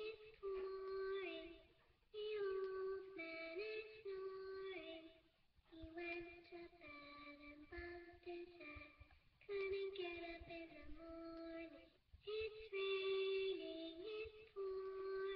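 A high voice singing a melody in held, steady notes, in short phrases of one to two seconds separated by brief pauses.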